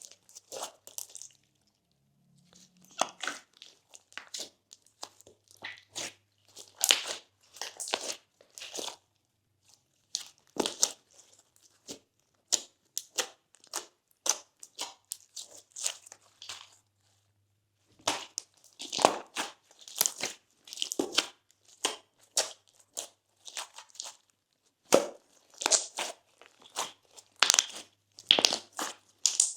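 Slime with crunchy add-ins such as beads and floam mixed in, being squeezed and kneaded by hand, giving irregular bursts of crackling, crunching and sticky popping in clusters, with brief pauses about two seconds in and past the halfway mark.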